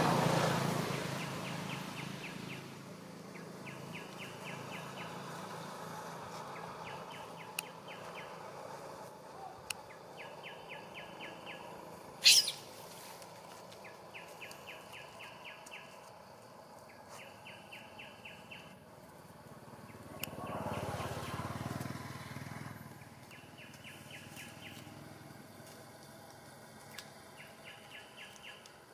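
Outdoor ambience: a high trilling call of quick evenly spaced ticks, each trill about a second long, repeating every two to three seconds. A single sharp crack stands out about twelve seconds in, and a swell of low noise rises and fades near the start and again around twenty seconds in.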